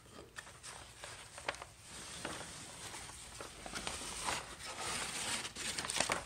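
Woven cloth and the paper packing rolled in with it rustling and scraping as the fabric is pulled off a rigid heddle loom's beam, with scattered light clicks and taps. It gets busier in the second half.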